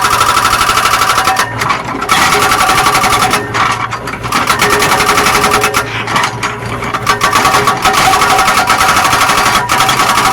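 Zoomlion excavator's diesel engine running hard while digging, a fast, even rattling pulse with a steady whine over it, easing briefly a few times.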